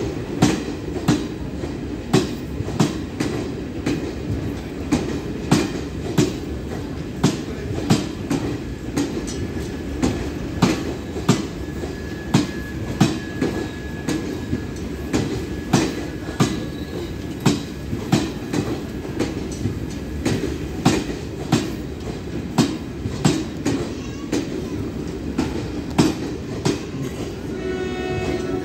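Garib Rath Express passenger coaches rolling slowly past the platform, their wheels clicking over the rail joints in a steady clickety-clack over a low rumble. A brief pitched hum joins in near the end.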